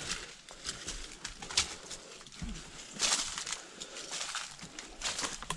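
Hiker breathing hard on a steep uphill trail, a loud breath about every second and a half, with footsteps crunching on dry leaves and dirt.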